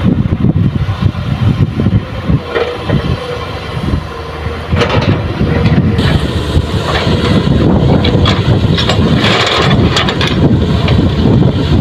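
Heavy diesel machinery running: an excavator and dump truck working together while soil is loaded, with a few short knocks. The sound gets louder about five seconds in.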